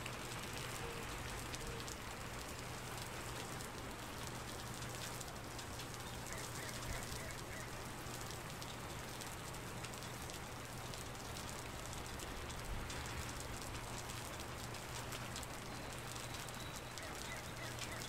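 Steady rain falling on wet paved ground and into shallow puddles: an even hiss of many small drop impacts.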